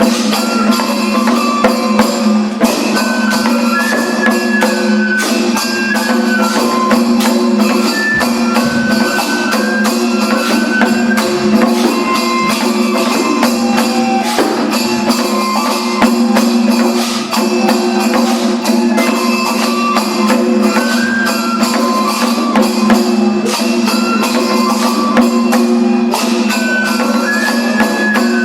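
Kagura festival music: a bamboo flute plays a stepping melody over rapid, unbroken drumming and clicking percussion.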